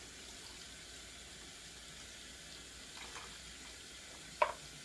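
Sink faucet running steadily into a plastic tub that is filling in the basin. A small knock comes about three seconds in, and a sharper knock near the end.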